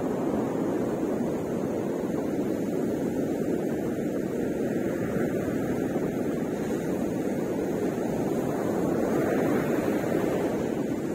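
Ocean surf breaking on a sandy beach: a steady rushing wash that swells a little near the end.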